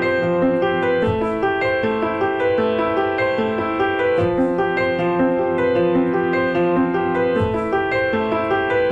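Soft background piano music, a steady flow of sustained notes.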